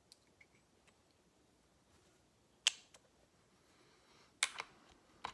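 Small steel lifter parts and shims clicking together as they are handled and fitted, for a BMW M52 hydraulic-to-solid lifter conversion. A few faint ticks come first, then two sharp clicks under two seconds apart, each followed by a lighter tick, and another click near the end.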